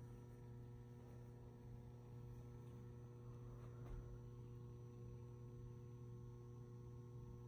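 Faint steady low electrical hum with overtones from a 150-watt high-pressure sodium flood light's ballast.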